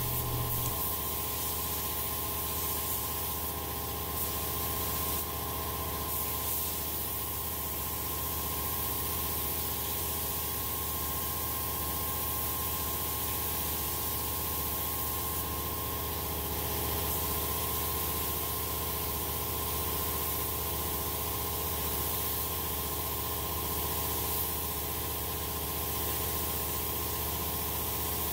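Neiko 31207A HVLP mini gravity-feed spray gun hissing steadily as it sprays clear coat. Underneath is the steady hum of an air compressor running.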